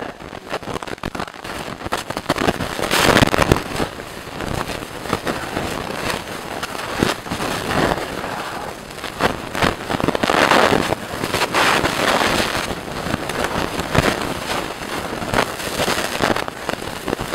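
Strawberry-cherry jam boiling hard in a cast iron pot, a continuous crackle of popping, spattering bubbles that swells louder about three seconds in and again about ten seconds in.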